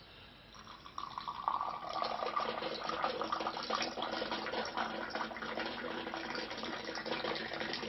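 Mint tea poured from a silver Moroccan teapot held high, a thin stream splashing into a small tea glass; the pour starts about a second in and runs on steadily as the glass fills.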